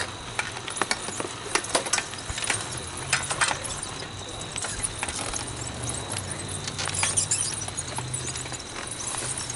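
Irregular clicks and rattles from bicycle and kart parts as they roll along a paved road, over a low rumble.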